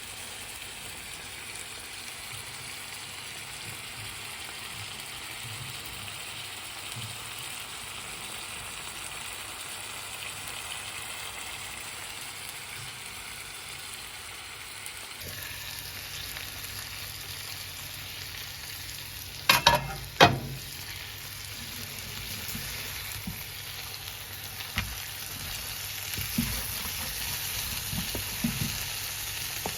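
Food sizzling steadily in hot oil in a frying pan. Two sharp knocks come about two-thirds of the way through, with a few fainter ones near the end.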